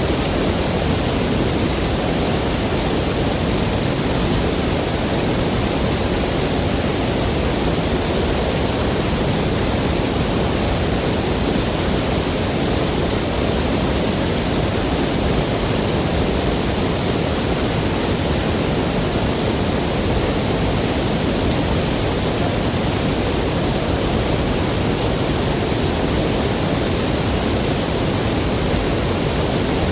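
Steady, dense rush of falling and cascading water from a waterfall, unbroken.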